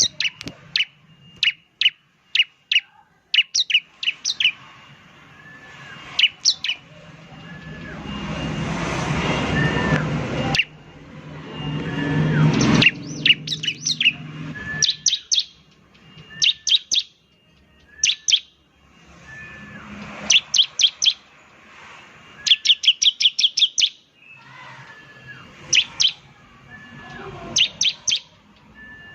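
Bar-winged prinia (ciblek) calling: sharp, high chirps fired in quick runs of several notes, the rapid 'nembak' call. A rushing noise swells up twice in the background, the first time cutting off suddenly.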